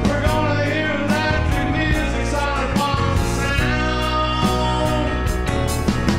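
Live rock band playing: a lead vocal over piano, electric guitar, bass and drum kit.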